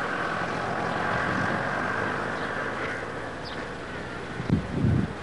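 A vehicle engine running steadily close by, mixed with wind rumbling on the microphone, with a few low bumps near the end.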